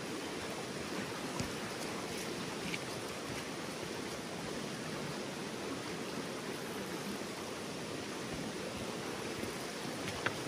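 Steady rushing of a fast, shallow river pouring over rocks in whitewater riffles, with a couple of faint ticks.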